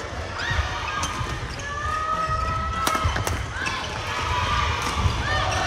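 Badminton rally on an indoor court: sharp smacks of rackets striking the shuttlecock several times, rubber-soled court shoes squeaking on the floor, and heavy footfalls and lunges thudding on the wooden court.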